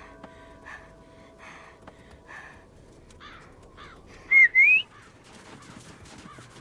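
Two short, loud whistled notes about four seconds in, the second sliding upward, over faint repeated rustling.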